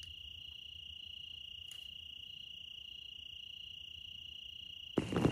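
Crickets chirring in one steady, unbroken high trill. A louder sound cuts in at the very end.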